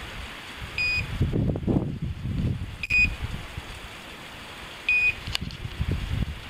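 Hunting dog's electronic beeper collar giving a short, high beep about every two seconds, four times, the steady signal such collars give while a setter holds point. Between the beeps there is the rustle of undergrowth and twigs as someone pushes through brush.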